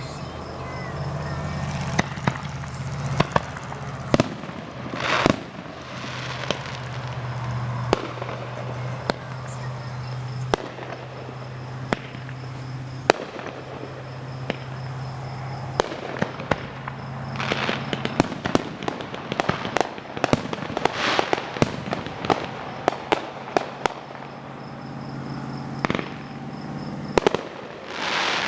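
Fireworks show: sharp bangs and pops, some single and some in quick crackling runs, with a few longer hissing rushes. A low steady hum sits underneath for the first two-thirds or so and then fades.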